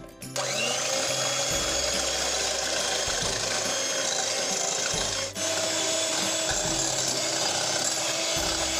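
Electric hand mixer switched on and running steadily, its beaters whirring through raw eggs in a glass bowl. About five seconds in it briefly dips, then runs on with a slightly different hum.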